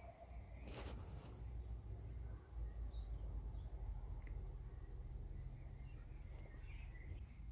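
Quiet outdoor ambience: a steady low rumble with faint, scattered bird chirps, and a single sharp click about a second in.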